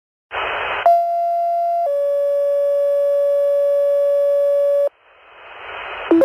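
Fire dispatch two-tone page over a radio: a short burst of static, then a steady tone for about a second, dropping to a slightly lower tone held about three seconds. Radio hiss rises after it, with a brief blip near the end.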